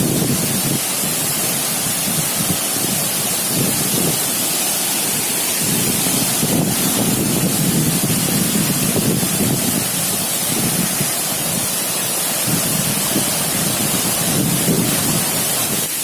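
Waterfall pouring heavily at close range: a steady, dense rush of falling water with an uneven low rumble.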